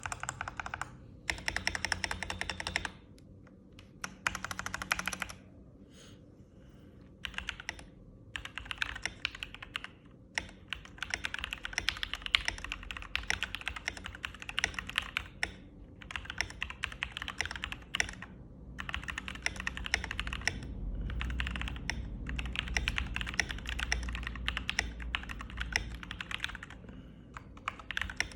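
FL Esports MK870 mechanical keyboard with Jwick Yellow linear switches, stock stabilizers and cherry-profile keycaps being typed on fast, in runs of rapid keystrokes broken by short pauses.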